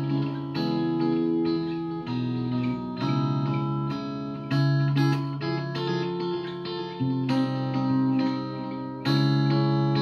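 Clean electric guitar played through a Boss CE-2 analog chorus pedal into small combo amps: a run of chords and single notes, a new one struck about every second and left ringing with the chorus's shimmer.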